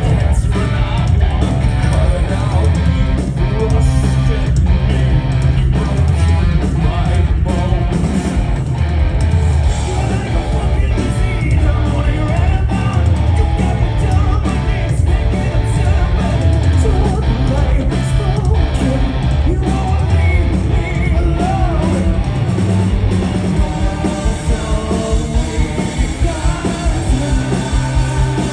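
Live rock band playing loudly: electric guitar, drums and a singer's voice over a steady beat.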